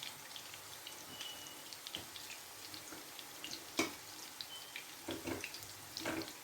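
Lazy cabbage-roll patties frying in oil in a frying pan: a faint steady sizzle with scattered small crackles and pops, and one sharper click about four seconds in.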